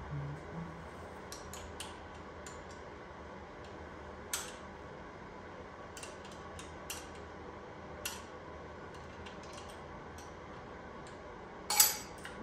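Scattered light metallic clicks and clinks of hand tools and sockets being handled, with one louder clack near the end.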